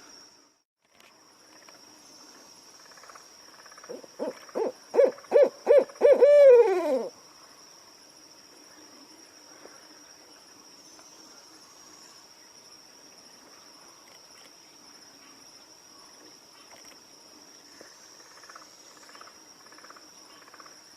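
An owl hooting: a quick series of about seven hoots a few seconds in, coming faster towards the end, with the last note drawn out and falling in pitch. A steady high-pitched insect trill runs underneath.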